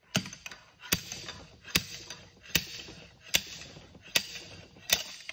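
Slide hammer clamped to a fuel injector in a BMW N20 cylinder head, its weight slammed against the stop seven times in a steady rhythm, about one blow every 0.8 seconds, to pull the injector out.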